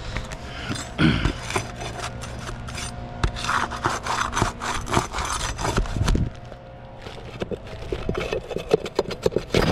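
Asphalt roof shingles scraping and rubbing as they are worked and lifted by hand and tool, with irregular scrapes and clicks. A faint steady hum runs underneath.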